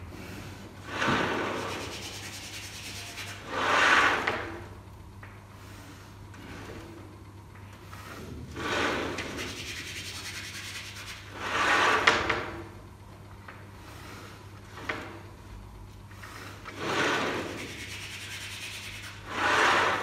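Chalk drawn in long strokes across a chalkboard, six rubbing, scraping swells of a second or two each, as balusters are drawn and shaded in.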